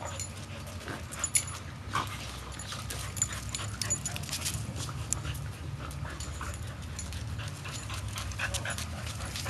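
A corgi panting, with scattered light clicks and taps throughout.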